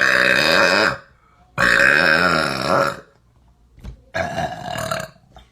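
A person burping loudly: two long, deep burps of about a second each, then a shorter, quieter one near the end.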